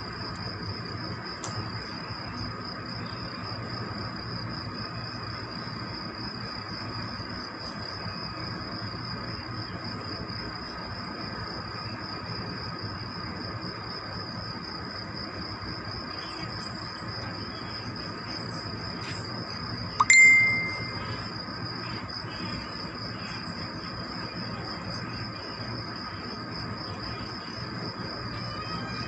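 A steady high-pitched trill with a slight wobble over a low steady hum. About twenty seconds in comes a single sharp metallic ding that rings briefly and is the loudest sound.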